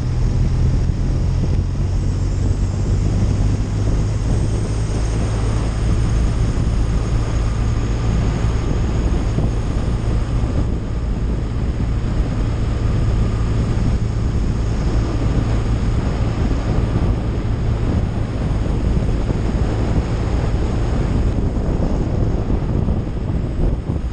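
Touring motorcycle riding at a steady speed: a steady low engine hum under heavy wind noise on the microphone.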